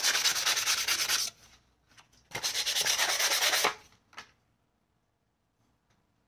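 Sandpaper rubbed quickly back and forth along the steel tang of a hunting knife, in two spells of rapid scratchy strokes, the second starting about two seconds in. A single light tap follows.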